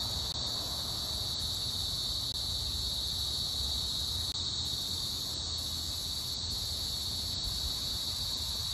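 Insect chorus: a steady, unbroken high-pitched drone, over a faint low rumble.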